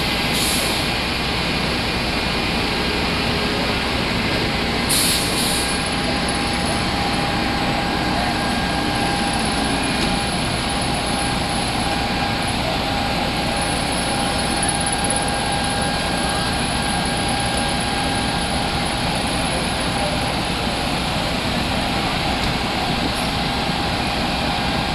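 Fire trucks' diesel engines running steadily at the curb, with a faint steady whine over the engine noise. A brief high hiss of air brakes comes twice, near the start and about five seconds in.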